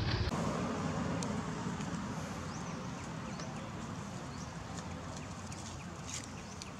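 Steady outdoor background hiss with no voices, changing abruptly a moment in. A few faint, short high chirps come about halfway through, and a few light clicks near the end.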